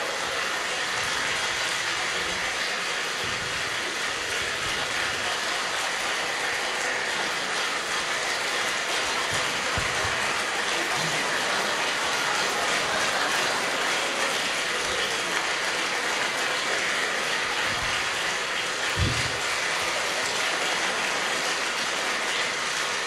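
A crowd applauding steadily without a break, a dense even clatter of many hands, with a brief low thump about nineteen seconds in.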